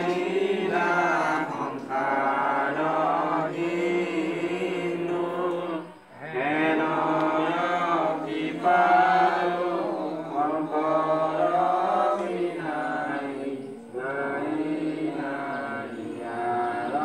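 A group of voices chanting a Hindu devotional chant together in long held phrases, pausing briefly for breath about six seconds and fourteen seconds in.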